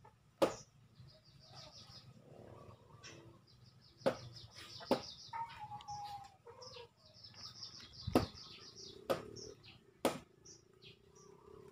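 Sharp snaps of leafy vegetable stems being broken by hand, six in all, with rapid high chirping of small birds and chickens calling in the background.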